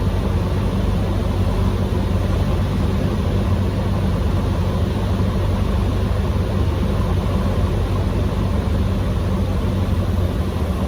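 Single-engine Cessna 150M's four-cylinder Continental O-200 engine and propeller droning steadily in flight.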